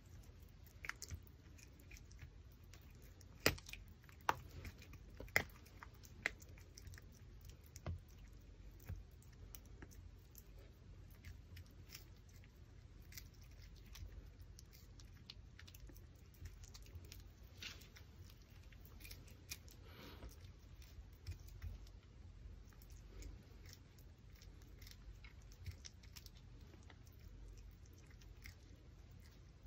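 Pomeranian puppy chewing and gnawing a raw pork backbone, with irregular sharp crunches and clicks of teeth on bone; the loudest come in a cluster a few seconds in.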